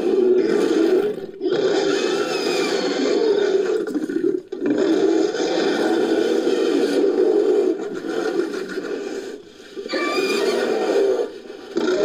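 Monster sound effect made by layering and editing bear roars and growls (grizzly, black bear, cave bear and Arctodus recordings). It plays as a string of long, deep roars with short breaks between them, about five in all.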